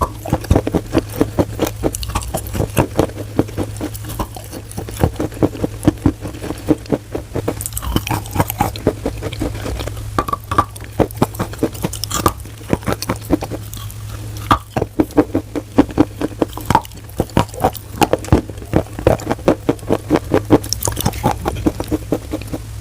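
Chalk being chewed close up: rapid wet crunches and crackles, several a second, with a few brief lulls, over a steady low hum.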